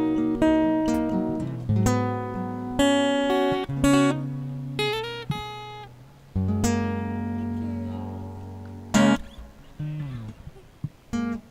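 Acoustic guitar strumming chords. One chord is held and left to ring out in the middle, then it fades, and fresh strums start near the end.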